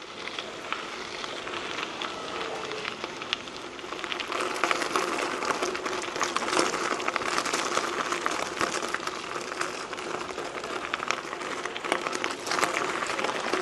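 Trek 4500 mountain bike tyres rolling over a gravel trail: a continuous crunching crackle of many small stone ticks, getting louder about four seconds in.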